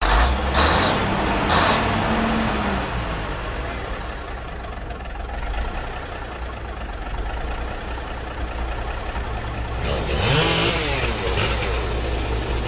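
Engine running with a steady low drone. Its speed rises briefly in the first couple of seconds and again about ten seconds in.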